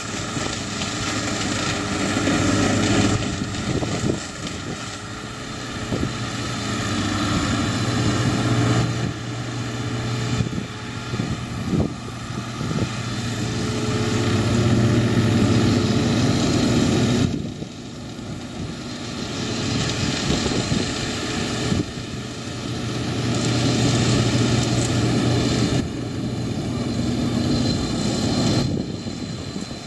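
Farm tractor's diesel engine running as it drives with a round bale raised on its front loader. The engine note rises and falls in loudness several times.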